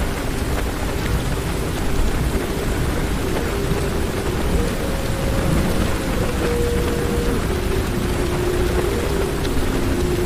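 Heavy rain drumming on a car's roof and windows, heard from inside the car, with a steady low rumble of thunder.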